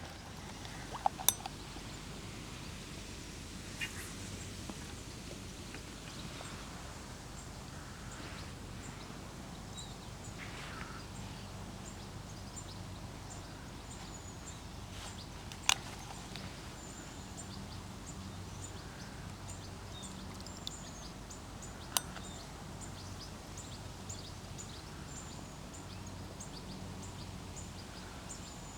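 Quiet outdoor riverside ambience: a steady low background with small birds chirping high and thin, more often in the second half, and a few sharp isolated clicks.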